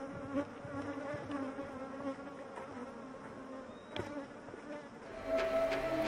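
Honeybees buzzing around opened wooden hive boxes, a wavering drone, with a single sharp knock about four seconds in.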